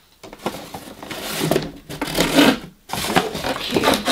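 Hands rummaging inside a cardboard box, cardboard and packed products scraping, rustling and knocking against each other, in two spells with a short break about two and a half seconds in.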